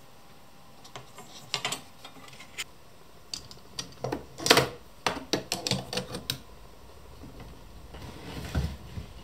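Metal hand tools, pliers among them, clinking and clattering as they are moved about in a drawer, the loudest clatter about four and a half seconds in. Near the end the drawer is pushed shut with a low thump.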